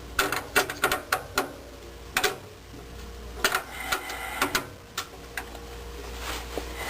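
Screwdriver working a stubborn screw into a furnace's sheet-metal pressure-switch bracket: a run of sharp, irregular metal clicks and taps, thickest in the first couple of seconds, with a few more later on.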